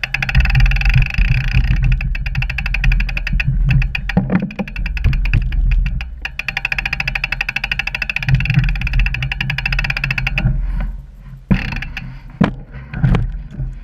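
Mountain bike's rear freewheel hub ticking rapidly and evenly while the bike coasts over a rough trail, over a low rumble of tyre and wind noise. The ticking stops about ten seconds in, leaving a few sharp knocks of the bike over rocks.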